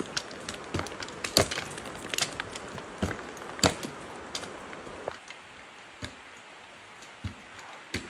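Irregular sharp knocks and snaps of wood, about one a second, over a rustling hiss that drops away about five seconds in, after which the knocks come more sparsely.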